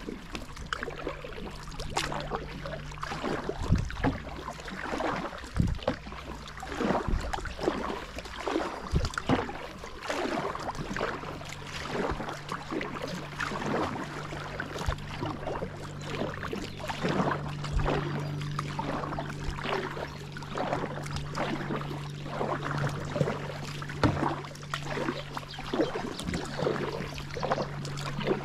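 Kayak paddle strokes: the blades dip into the water with irregular splashes and drips. A steady low hum runs underneath.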